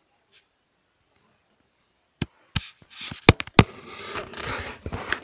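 Near silence, then about two seconds in four sharp clicks and knocks, followed by rustling and rubbing: handling noise as the camera is picked up and moved about.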